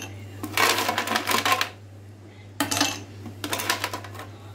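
Ice cubes dropped into a vessel, clattering and clinking in two handfuls.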